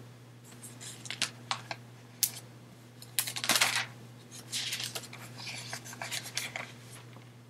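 Paper being handled and pages turned: a run of short rustles and clicks, loudest about three and a half seconds in, over a steady low electrical hum.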